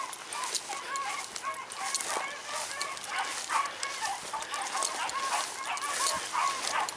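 Beagles baying over and over, many short pitched calls in quick succession, as the pack runs a rabbit on its scent trail.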